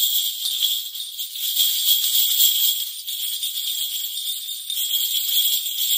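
Korean shaman's brass bell cluster (bangul) shaken without pause, a dense, bright, high jingling that swells and eases as the hand moves.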